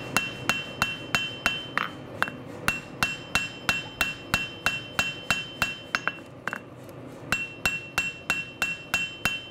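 Hand hammer striking a hot knife blade on an anvil, about three blows a second, each with a ringing note, pausing for about a second a bit past halfway before starting again. The blows are forging the blade so that its tip curves up.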